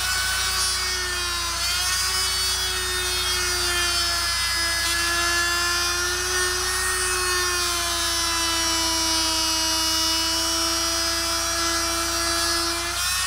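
Oscillating multi-tool running with its blade pressed into the rubber tread of a turf tire, a steady buzzing whine that wavers a little in pitch and cuts off near the end. The blade cuts the rubber fairly well.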